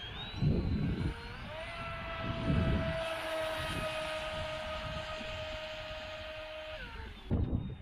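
The Kyosho Jetstream 888VE RC boat's brushless outrunner motor whines at speed. Its pitch climbs about a second and a half in, holds steady for several seconds, then drops near the end as the throttle comes off. Low gusts of wind buffet the microphone three times.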